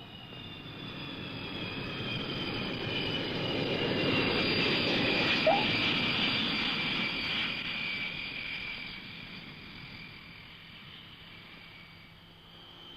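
Airliner passing: its engine noise swells to a peak about five seconds in and fades away, with a high whine slowly falling in pitch.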